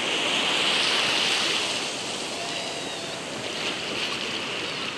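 Steady rush of moving water with splashing around a child in the water, loudest about a second in and easing off after.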